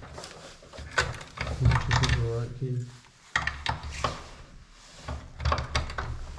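A door being tried: a run of sharp clicks and knocks from a handle and latch being worked, with wooden knocks, a low voice partway through.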